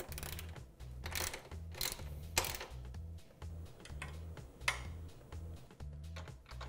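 Ratchet clicking in quick runs as a deep socket and Allen key tighten the rack's bolts and nuts, with a few louder knocks from the tools. Background music with a steady beat runs underneath.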